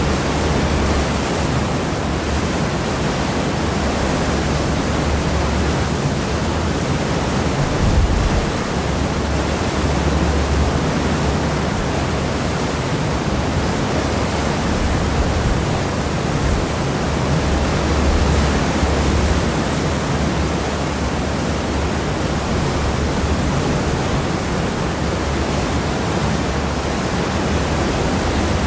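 Seawash churning in the wake behind the stern of a cross-channel ferry: a steady rushing of water over a deep rumble, swelling slightly now and then, most strongly about eight seconds in.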